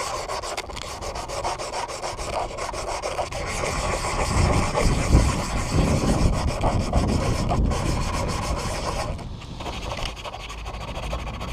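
Oil cap being sanded by hand to take off a bubbly coat of spray paint: continuous scratchy rubbing, louder in the middle, that stops about nine seconds in.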